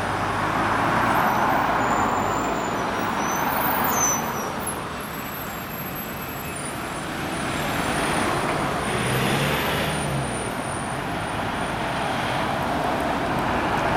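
Urban road traffic: cars and vans passing one after another, the noise swelling and fading as each goes by. Near the end it swells again as a city bus passes close.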